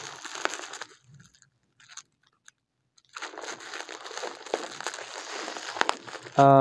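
Plastic packaging crinkling and crunching as a wrapped package is handled and cut open, stopping for a couple of seconds in the middle. Near the end a loud, steady low hum cuts in.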